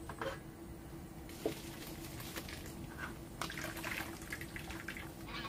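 Boiled rice noodles and their hot water poured from a pan into a plastic strainer over a wooden bowl, the water splashing and draining through, with a sharp knock about a second and a half in.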